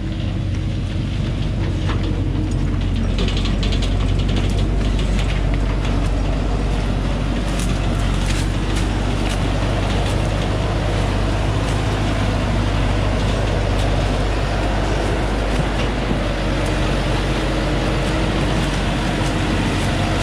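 Thaco Forland light truck's diesel engine running steadily under heavy load as the truck, laden with acacia logs, climbs a steep, rocky track. Scattered crackles and clicks, thickest a few seconds in, come from stones and brush under the tyres and along the body.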